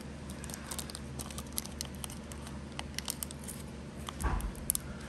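Foil wrapper of a Pokémon Paldea Evolved booster pack crinkling and crackling in the hands as it is worked open, in many small, scattered crackles. A louder low bump comes about four seconds in.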